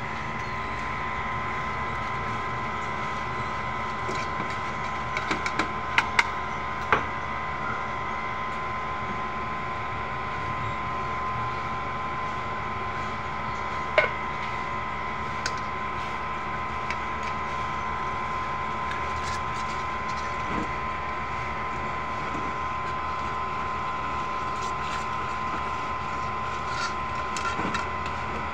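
Electric hand mixer running steadily as its beaters mix chocolate cream in a metal bowl, with a few sharp knocks about six seconds in and one about fourteen seconds in.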